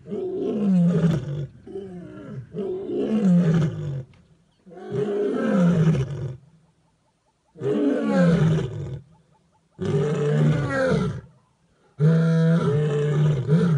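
Lionesses roaring in a bout of about seven long calls, each sliding down in pitch, spaced a little under two seconds apart with short quiet gaps.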